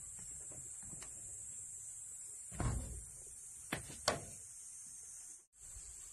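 Wooden pole ramming a packed clay-soil mix inside a wooden wall form: a dull thud a little over halfway through, followed by two sharper knocks about half a second apart, over a steady high hiss.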